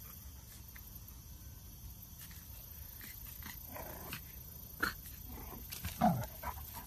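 A French bulldog puppy giving a few small barks and growls at a bigger dog, the loudest a short yelp falling in pitch about six seconds in.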